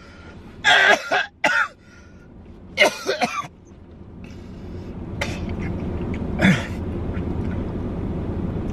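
A man's harsh, hacking coughing fit, staged as a prank: three or four loud coughs in the first few seconds, then two more rough hacks, one ending in a falling croak. A steady low hum comes up from about four seconds in and holds under them.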